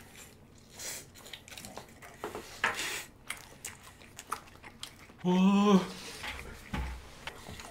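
Slurping and chewing of Samyang Buldak spicy stir-fried instant noodles, in short noisy bursts, with a short hummed vocal sound about five seconds in.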